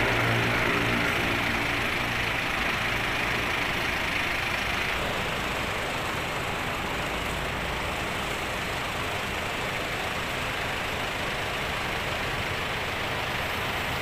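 Intercity coach's diesel engine running at low speed as the bus pulls slowly across the lot, its hum gradually fading as it moves away.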